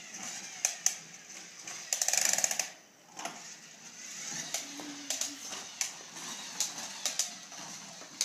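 Small toy truck rolling and clattering on a hardwood floor, pushed along by hand, with scattered sharp clicks and knocks. One louder rattle of under a second comes about two seconds in.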